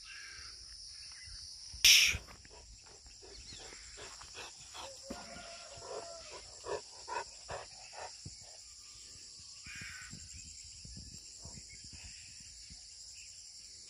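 Rural outdoor ambience: insects chirring steadily at a high pitch, with one loud short bird call about two seconds in and scattered faint bird chirps after it.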